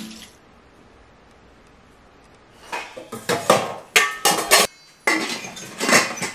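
Metal pot and steel lid of a Prestige electric rice cooker clinking and knocking as they are handled, a run of sharp clatters starting a few seconds in after a short quiet.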